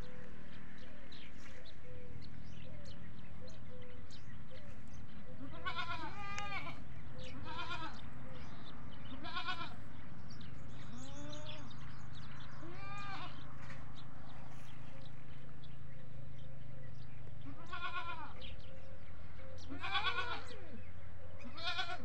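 Goats bleating: about eight wavering calls, beginning about six seconds in, pausing for a few seconds in the middle, and loudest near the end. A steady low hum runs underneath.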